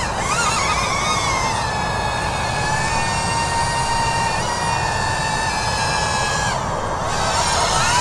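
DJI Avata FPV drone's ducted propellers whining as it flies, the pitch wavering for about the first second and then holding steady.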